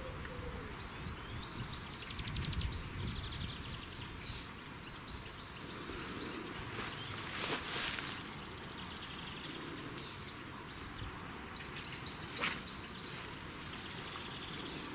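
Small birds chirping and calling in the open air, with a short trill a few seconds in. About halfway through, a loud rushing noise lasts a second or so, and a sharp click comes near the end.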